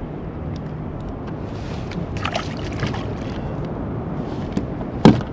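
Open-water noise aboard a kayak: a steady low wash of water and wind, with a few brief faint rustles about two seconds in and a sharp knock near the end.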